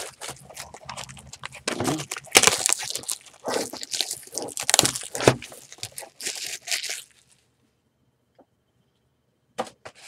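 Clear plastic shrink-wrap being torn and peeled off a cardboard trading-card box, crackling and crinkling, stopping about seven seconds in.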